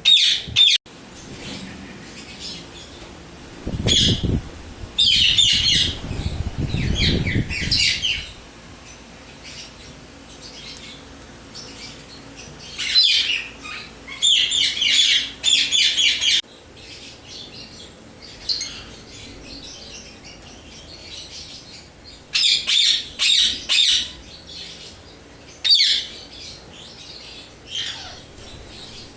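Indian ringneck parakeets calling in several bursts of rapid, high, repeated squawks and chatter, with short pauses between bursts. A low rumble sits under the second burst.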